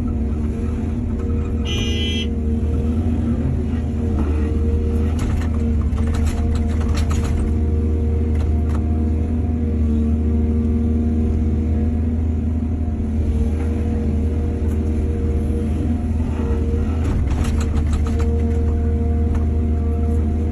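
Excavator's diesel engine running steadily under load while it works, with a brief high squeal about two seconds in and a few short knocks and clanks scattered through.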